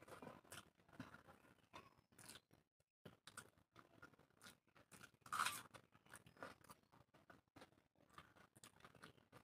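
Faint close-up eating sounds: mouth clicks and smacks of chewing a mouthful of rice, with fingers mixing rice and curry on the plate. One louder burst comes about five and a half seconds in.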